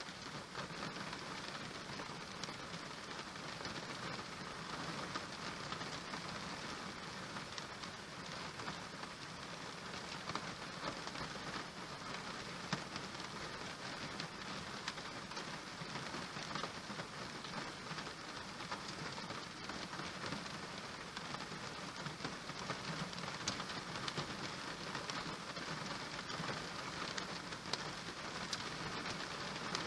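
Steady rain falling, a dense even hiss with many small, sharp drop ticks scattered through it.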